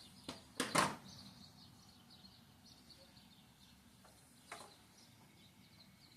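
A few sharp knocks and clicks from car parts being handled during the repair, the loudest just under a second in and another about four and a half seconds in, with faint birds chirping in the background.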